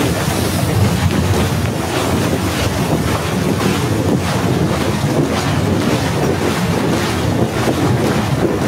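Snowstorm wind blowing hard across the phone's microphone: a loud, steady rush of wind noise.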